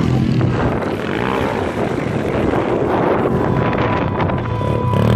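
Several 125cc pit bike engines revving up and down as the riders race past, the pitch rising and falling repeatedly.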